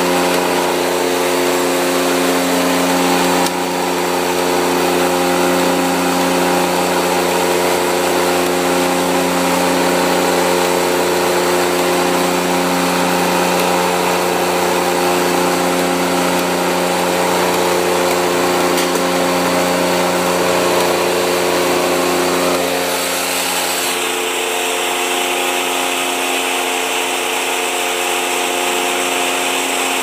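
Homemade wire-stripping machine running: its electric motor and worm-gear reducer hum steadily with several steady tones while a thick 500 MCM cable is pulled through the cutting wheel. About three quarters of the way through, some of the tones fall away and it gets a little quieter.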